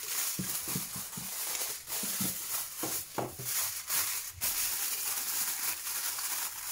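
Aluminium foil crinkling and rustling as it is folded and pressed down by hand over a baking dish, a continuous run of irregular small crackles.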